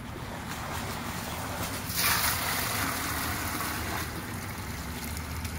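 Water gushing from a corrugated pool hose into a plastic bucket holding aquarium gravel, to rinse the gravel. The rush gets louder about two seconds in and stays steady.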